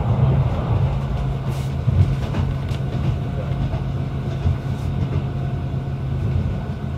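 PESA 620M diesel railcar running along the line: a steady low engine and rail hum with a few faint clicks about two seconds in.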